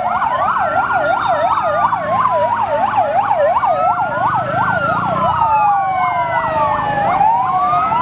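Sirens of several fire trucks passing in a convoy. A fast yelp sweeps up and down about three times a second, overlapping slower rising-and-falling wails, and the fast yelp stops about five and a half seconds in. A low engine rumble runs beneath.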